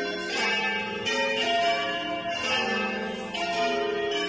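Church bells ringing in sequence, strike after strike, their tones hanging on and overlapping.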